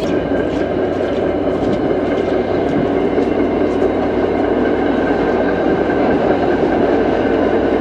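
Train running on its rails: a steady loud rumble with faint steady tones and a few light clicks.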